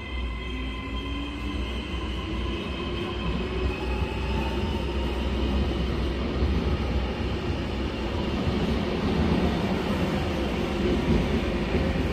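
Double-deck electric regional train pulling away: a steady low rumble of wheels on rail, with the traction motors' whine rising in pitch as it gathers speed.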